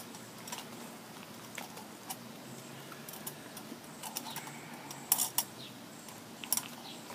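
Scattered small clicks and metallic clinks of copper wires and light-fixture parts being handled while the ground wires are joined together, with a few sharper clicks about five seconds in and again about six and a half seconds in.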